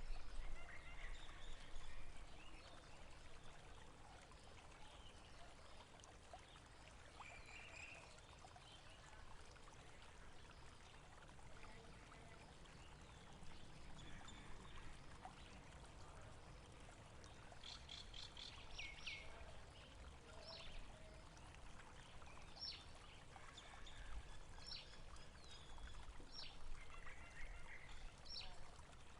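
Faint, steady flowing water, like a stream, with scattered short bird chirps, most of them in a cluster about two-thirds of the way through.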